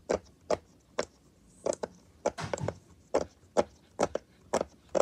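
Bubbles of a large 400-bubble silicone pop-it fidget being pressed one after another, each giving a short pop, about two a second.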